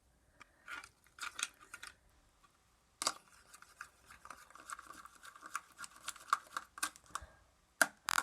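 Homemade gel-soap-and-salt slime squished and worked with the fingertips: an irregular run of wet clicks and squelches, thickest in the middle.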